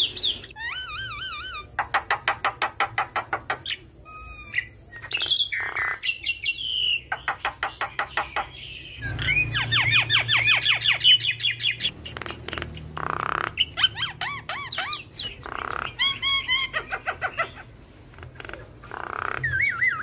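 Javan myna singing a loud, varied song: fast runs of repeated clicky notes at about eight a second, rising whistled notes and trills, and harsh squawks, strung together in phrases with short pauses.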